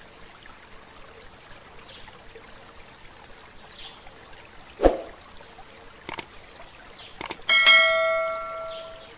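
A sharp thump near the middle, then mouse clicks and a bell ding that rings and fades over about a second and a half: the click-and-bell sound effect of a YouTube subscribe-button animation. A faint steady trickle of water runs underneath.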